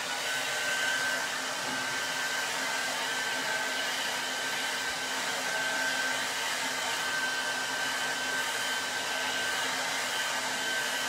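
Handheld hot-air dryer blowing steadily at a high setting to dry paint on a craft piece. Its motor whine steps up in pitch right at the start, then holds steady.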